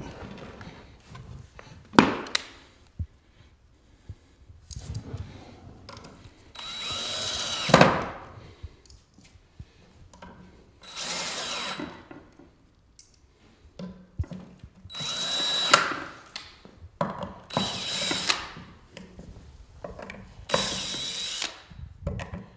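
Cordless drill/driver driving screws through metal hinges into a wooden frame, in five short runs of about a second each with a steady high whine. There are a few sharp knocks of wood and metal being handled, the loudest about two seconds in.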